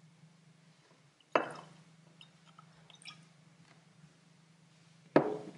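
Whisky poured from a bottle into a tulip nosing glass: a sudden splash of liquid about a second in that fades away, a few faint drips, then another sharp knock or splash near the end.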